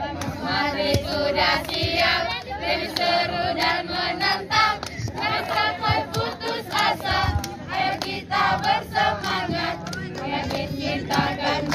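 A group of teenage voices singing a chant-like song together, with hand claps in time.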